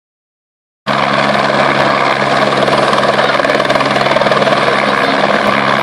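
Small helicopter hovering low as it comes in to land, loud and close: steady engine hum under the fast, even beat of the rotor blades. The sound starts about a second in.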